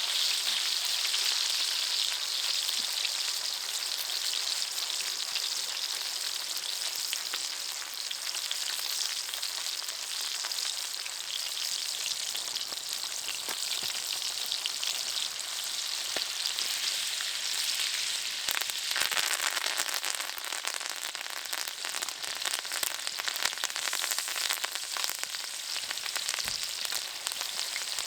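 Food frying in a hot pan: a steady sizzle with many small crackles and pops.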